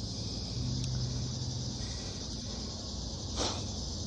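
Steady high-pitched chirring of insects, with a low hum in the first two seconds and a brief rustle about three and a half seconds in.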